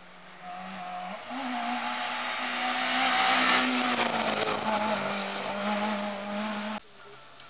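Race car engine held at high revs as the car comes up and passes close by, stepping up in pitch about a second in and loudest around three seconds in, then cut off abruptly near the end.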